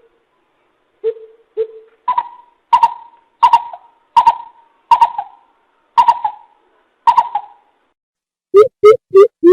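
Coucal (bìm bịp) hooting: two soft low hoots, then a run of about eight higher notes spaced under a second apart, then a fast series of loud low hoots, about three a second, near the end.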